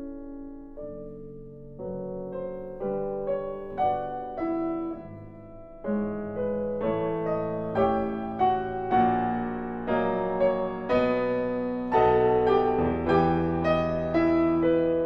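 Background piano music: a melody of separate notes that grows louder and fuller about six seconds in.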